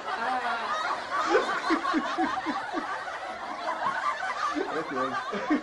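Laughter, with a run of rhythmic ha-ha-ha strokes about four a second near the middle.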